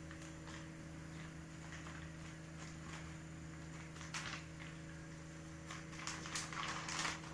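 A steady electrical hum, with faint rustling and crinkling of packaging as a delivered parcel is handled and opened, about four seconds in and again near the end.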